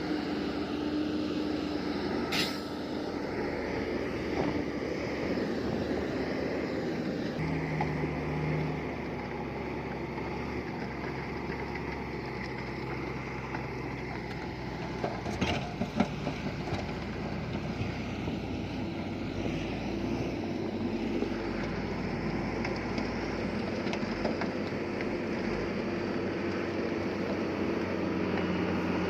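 Heavy diesel earthmoving machinery, a bulldozer at work, running continuously with steady engine tones that shift in pitch now and then. Two sharp metallic clanks stand out, one a couple of seconds in and a louder cluster about halfway through.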